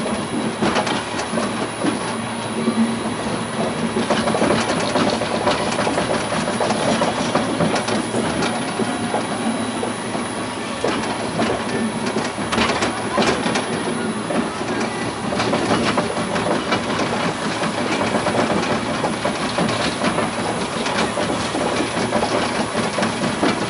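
Vekoma/Caripro monorail car running along its elevated rail: a steady rolling rattle from the wheels on the track, with many small clicks.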